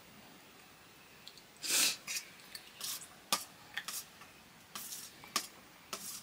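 Dishes and eating utensils handled during a meal: scattered light clicks and taps, with one short noisy burst about two seconds in that is the loudest sound.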